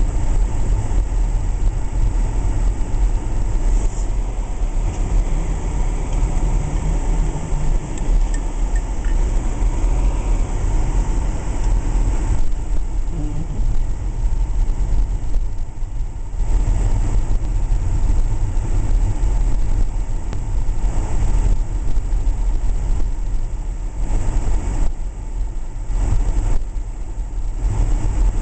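Inside a car driving on snow-covered streets: a steady low rumble of the engine and tyres on packed snow, with an even hiss of road noise above it.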